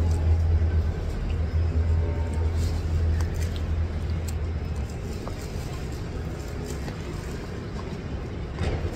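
Plastic spoon scraping and clicking in a plastic food container, a few light taps, over a low steady rumble that fades about halfway through.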